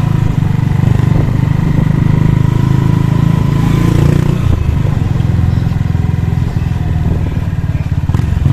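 Motorcycle engine running as it rides along a street, easing off with the note dropping about four seconds in.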